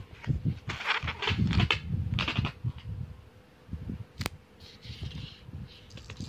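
Short, breathy vocal sounds in quick irregular bursts for the first two and a half seconds, then a single sharp click about four seconds in.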